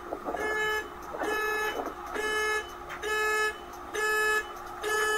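Car alarm sounding the horn in a steady pattern of single honks, about one a second.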